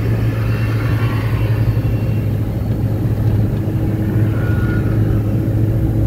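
Steady engine and road drone heard from inside a moving car's cabin, with a strong low hum.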